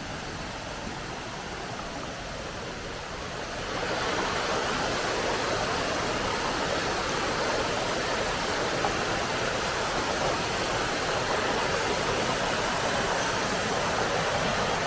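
Waterfall: a steady rush of falling water, stepping up in loudness about four seconds in and then holding.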